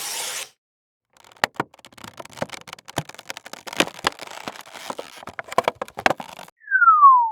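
Packaging being handled and opened: about five seconds of irregular crackling, clicking and crinkling of cardboard and plastic. A short whoosh comes at the very start, and near the end a falling whistle sound effect glides down in pitch.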